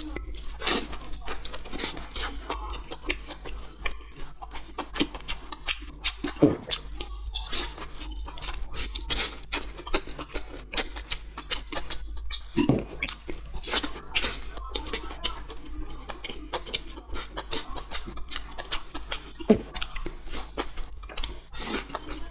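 Close-miked chewing of food, a dense run of wet mouth clicks and lip smacks with a short, louder low sound about every six seconds, over a steady low hum.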